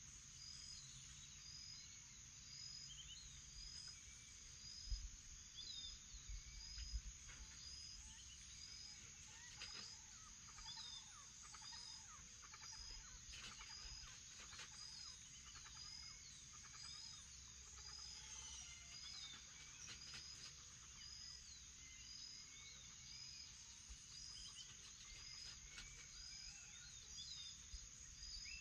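Faint morning chorus of birds chirping and calling over a steady high-pitched insect drone, with one short high note repeating about once a second. A few low thumps come about five to seven seconds in.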